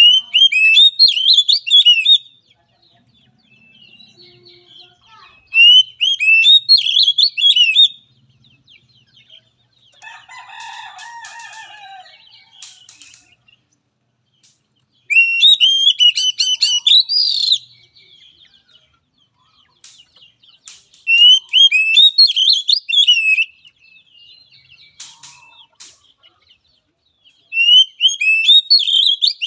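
Oriental magpie-robin singing in five loud bursts of rapid, high whistled notes, each about two seconds long and about five to six seconds apart. A fainter, lower call sounds between the bursts about ten seconds in.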